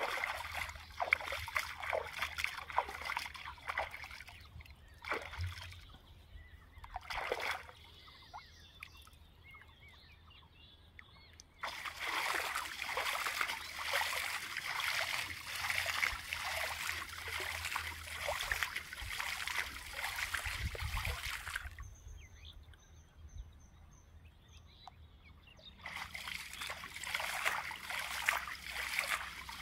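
Shallow pond water splashing and sloshing as a fishing line is hauled and jerked through it, in spells: a few short splashes early, a long spell of steady splashing through the middle, and a fresh spell near the end.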